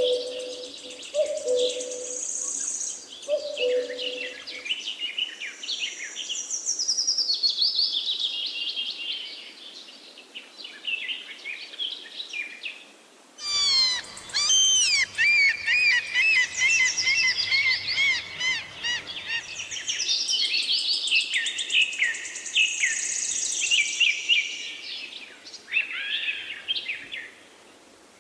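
A chorus of songbirds singing and calling, many overlapping chirps and warbled phrases. A low two-note call repeats a few times in the first four seconds. About halfway through the sound changes abruptly, and a faint low hum lies under the birdsong for several seconds.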